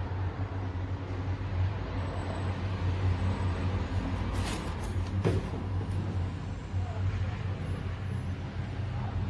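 Revlon One-Step Volumizer hot-air brush dryer running steadily: a constant blowing noise over a low motor hum.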